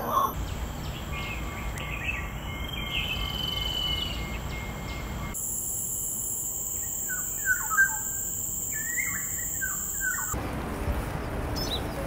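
Birds calling in forest: a long clear whistle about three seconds in, then a black-naped oriole giving short whistled notes, the loudest two about seven and a half seconds in, over a steady high tone in the background.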